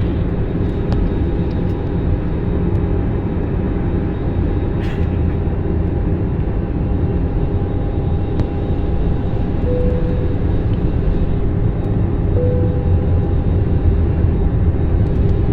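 Steady low roar of an airliner cabin in flight: engine and airflow noise. Two short, faint tones sound in the second half.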